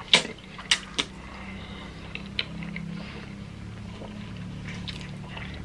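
Close-miked slurping and wet chewing of spicy ramen noodles: three sharp slurps in the first second, then quieter chewing and mouth sounds over a low steady hum.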